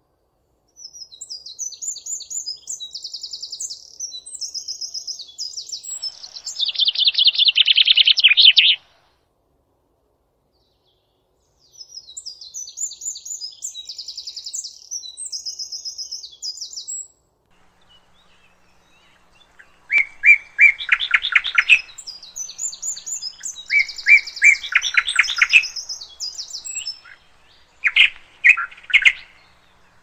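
Songbird song: long phrases of rapid, high trills with short silences between them. The first phrase ends in a louder, lower trill, and the last has loud repeated notes in quick bursts.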